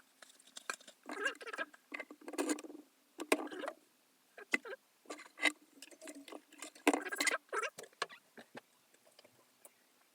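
Irregular scraping and tapping as crusted rust and sediment are knocked off an old iron army clasp knife, in short scratchy strokes broken by sharp clicks.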